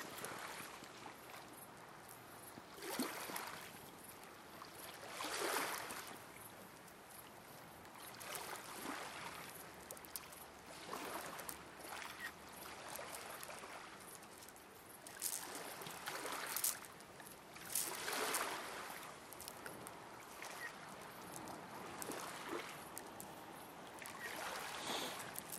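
Small waves lapping and washing against a rocky shoreline, in uneven swells every few seconds.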